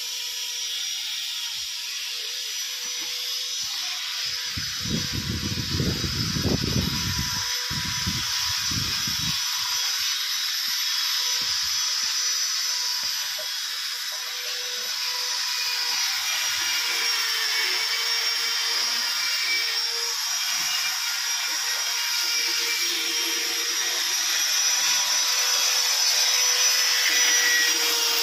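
Electric stone-working power tools running steadily: a constant high hiss over a steady hum, with a few low rumbles about five to nine seconds in.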